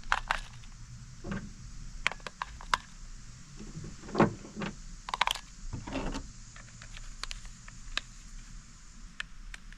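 Scattered plastic clicks and small rattles of AA batteries being fitted into a toy RC car's battery compartment and its snap-in cover being handled.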